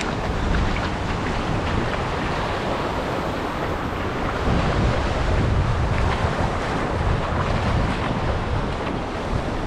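Wind buffeting the microphone over the wash of waves: a steady rushing noise, heaviest in the low end.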